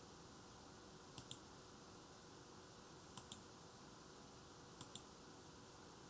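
Computer mouse double-clicking three times, each a pair of sharp clicks, over a faint steady hiss.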